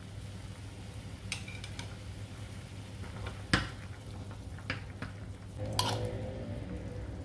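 A ladle stirring soup in a pot, knocking and clinking against the pot several times. The loudest knock comes about three and a half seconds in, and one clink near the end rings on briefly, over a steady low hum.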